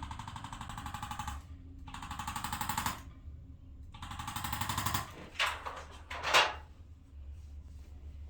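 A handheld electric chiropractic adjusting instrument of the kind used in the KST method, firing rapid pulses against the spine in three bursts, each a second or so long. It is followed by two brief, louder, sharp noises near the end.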